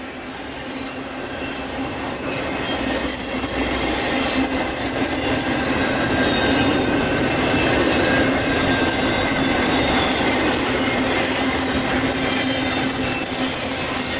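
Freight train of trailer-on-flatcar intermodal cars rolling past at speed, a loud steady rush of steel wheels on rail. Short faint high-pitched wheel squeals come and go through it.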